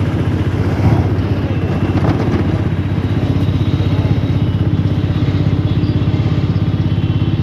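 A small passenger vehicle's engine running under way, heard from inside the cab: a loud, rapid, even chugging that holds steady.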